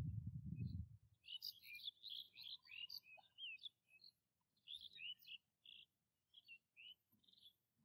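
Small birds chirping in quick clusters of short, high notes, some sweeping up or down, from about a second and a half in until near the end. A low, dull rumble dies away within the first second.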